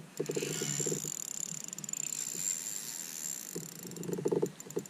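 Spinning reel being wound in against a hooked fish, in two spells of rapid clicking, one at the start and one near the end.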